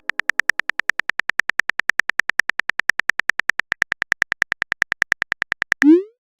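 Rapid, evenly spaced phone keyboard typing clicks, about nine a second, each with a short high beep. Near the end the clicks stop and a short rising swoop follows, like a message-sent sound.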